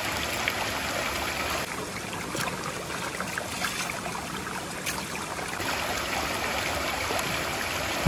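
Shallow mountain stream running and trickling over rocks close to the microphone, a steady rush of water, with a few brief splashes.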